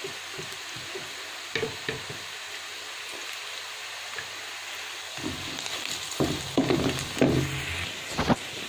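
Chopped onions and green chillies sizzling steadily in hot oil in a nonstick wok. A wooden spatula knocks a few times, then stirs and scrapes more busily from about halfway through, working in the chilli powder.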